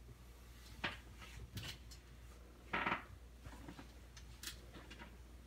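A few faint, short clicks and knocks over a low steady hum, the loudest about three seconds in.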